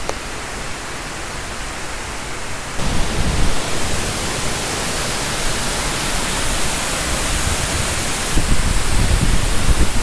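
Roar of the Khandadhar waterfall: a large cascade of water making a loud, steady rushing noise that steps louder about three seconds in and again near the end.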